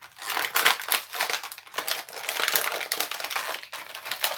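Toy packaging being handled and unwrapped, crinkling and rustling in irregular bursts.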